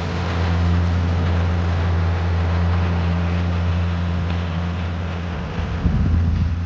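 An engine running steadily with a low, droning hum. About five and a half seconds in it turns briefly rougher and louder.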